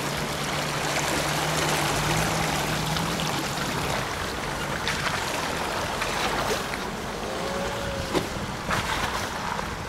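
Jeep driving through a water-filled hole, with water splashing and rushing against the vehicle over its engine, and a few knocks about five and eight seconds in.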